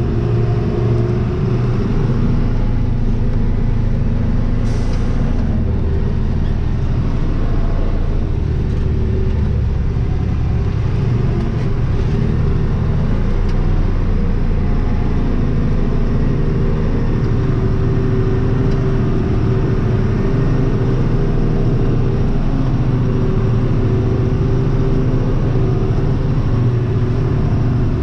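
Truck's diesel engine running steadily as the truck drives, its pitch shifting slowly with the road, with a short hiss about five seconds in.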